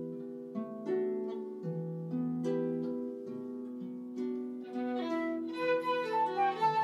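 Concert harp playing a slow introduction of plucked, ringing chords; about five seconds in, fiddle and flute enter with the melody over the harp.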